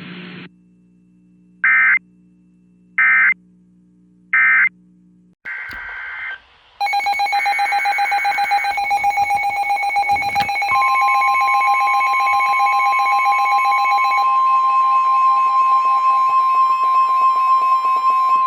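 Emergency Alert System alert between warnings: three short digital data bursts of the EAS header, about a second and a half apart, over a low hum, then a loud, pulsing electronic alert tone from about seven seconds in, joined around eleven seconds by a second steady tone. These tones introduce a new severe weather warning.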